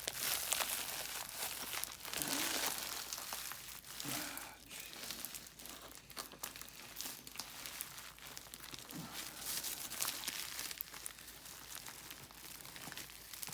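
Packaging crinkling and rustling with bouts of tearing, as a heavily taped package is worked open by hand.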